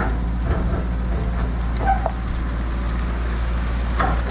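Engine of a hydraulic boat transporter running steadily as it carries a sailboat down the yard road, with a few light knocks.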